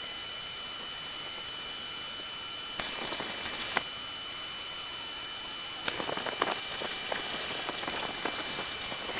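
Wire-feed (MIG) welder running beads on the steel tubes of a roll cage: a steady hiss from the arc, changing abruptly about three and six seconds in.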